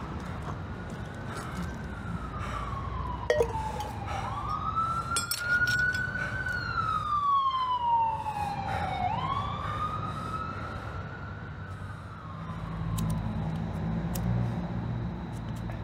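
Emergency vehicle siren wailing, its pitch rising quickly and falling slowly about every four to five seconds, over a steady low rumble.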